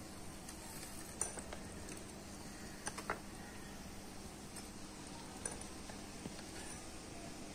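A few light, sharp clicks over a faint steady background, the loudest pair about three seconds in. They come from a small steel slotted spoon knocking against a tiny metal pot as fried bread gulab jamun balls are scooped out of the oil.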